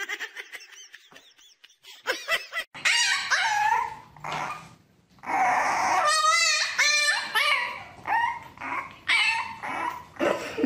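A French bulldog puppy whining and yelping in several bouts of high cries, some with a wavering pitch.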